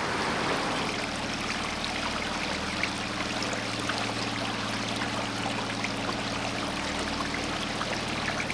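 Turbulent water rushing from a canal lock's bywash, then, about a second in, a petrol outboard motor joins, running steadily as a low hum over the hiss of water.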